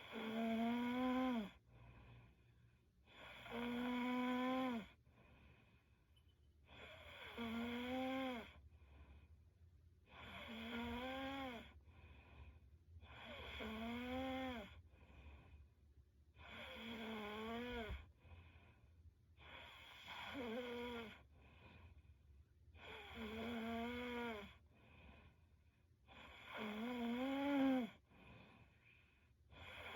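A young woman snoring in her sleep: a rhythmic snore on each breath, about every three and a half seconds. Each snore is a steady pitched tone that drops in pitch at its end, with quieter breathing between them.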